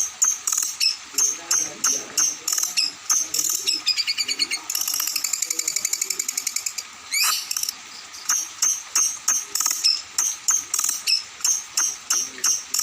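Songbird singing a fast string of short, high-pitched notes, about three a second, broken about halfway by a rapid buzzing trill and then a quick upward-sweeping whistle before the repeated notes resume.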